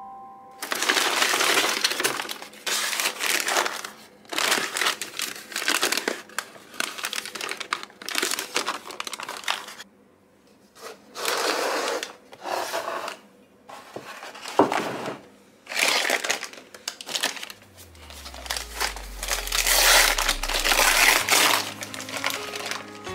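Brown paper bag and food packaging rustling and crinkling in repeated irregular bursts as they are handled and opened, with one sharp knock about two-thirds of the way in.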